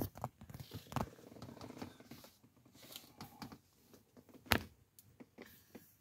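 Faint handling noise of a handheld camera being moved, with two short clicks, about a second in and about four and a half seconds in.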